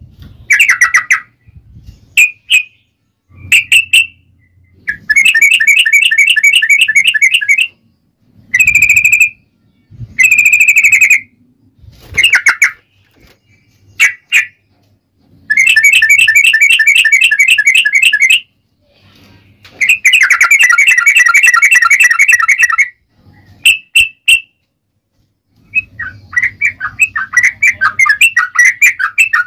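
Yellow-vented bulbul (trucukan) singing loudly in rapid chattering trills. Three long bursts of about three seconds each alternate with short calls and single notes, and a quick run of notes comes near the end.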